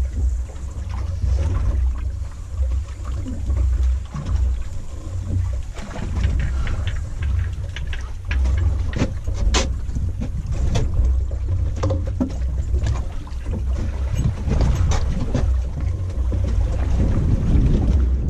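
Wind buffeting the microphone on a boat at sea: a steady, gusting low rumble, with scattered clicks and knocks from handling on deck.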